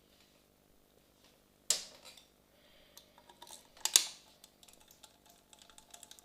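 Sharp metal clicks and clacks of a hand tool and loose parts being handled at a motorcycle's cylinder head while the spark plug cover is taken off with a 5mm Allen key: two loud clacks about two seconds apart, with lighter clicks between them.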